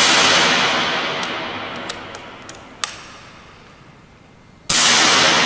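Kral Puncher pre-charged pneumatic air rifle fired twice: once right at the start and again about four and a half seconds in, each a sharp report that fades away slowly. Between the shots come a few light clicks as the side lever is cycled, which cocks the hammer and indexes the magazine for the next pellet.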